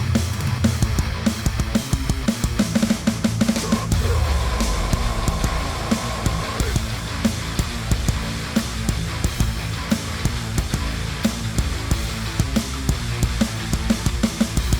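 Heavy rock band track with a drum kit played over it: fast, dense drum hits over distorted guitar and bass. About four seconds in, a high note is held for a couple of seconds, then slides down.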